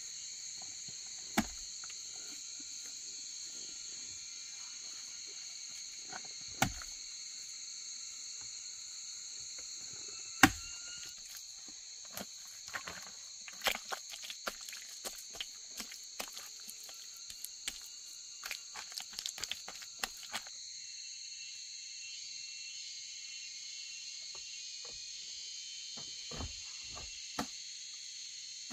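A steady, high-pitched chorus of insects such as crickets, with sharp knocks and clicks on top: the loudest about ten seconds in, and a quick run of them in the middle.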